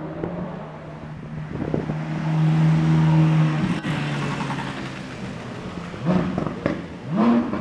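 Ferrari 458 Italia's 4.5-litre V8 running at high revs. It grows louder to a peak about three seconds in, then breaks off sharply just before four seconds. Two short rising engine notes follow near the end.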